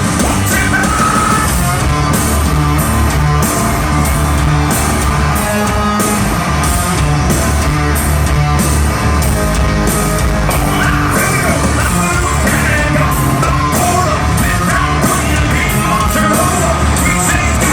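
A rock band playing live and loud, with the lead singer singing and yelling over the full band.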